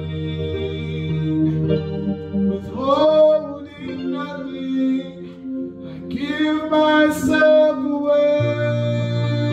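A man singing a gospel worship song while accompanying himself on an electronic keyboard, which plays held chords throughout. The voice comes in with sung phrases about three seconds in and again from about six seconds.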